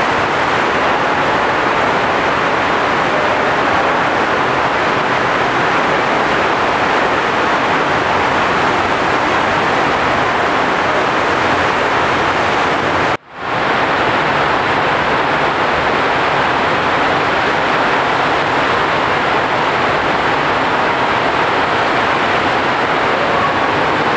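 Loud, steady rush of water from the jets of an indoor sheet-wave surf simulator (FlowRider), pouring up and over the ride surface. The sound cuts out for a moment about halfway through, then carries on unchanged.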